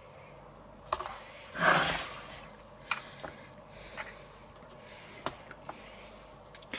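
Spatula spreading buttercream inside a stainless steel cake ring, giving several light clicks and taps against the ring, with one louder brief rushing noise about one and a half seconds in.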